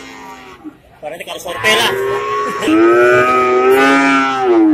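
A cow mooing: one long, loud call that starts about two seconds in and holds for some three seconds, its pitch dropping at the end, over the murmur of people's voices.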